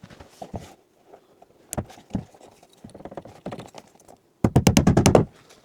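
Scattered light knocks and clicks of hands handling cables and fittings, then near the end a loud, rapid rattling clatter of about ten sharp knocks in under a second.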